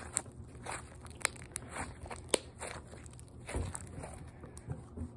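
A small piece of Elmer's Goo slime being squished and worked in the hands, making irregular sticky clicks and crackles, the sharpest about two and a half seconds in.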